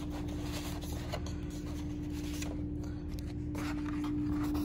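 Cardboard product box being handled and opened: a sleeve sliding and rubbing with light scrapes, over a steady background hum.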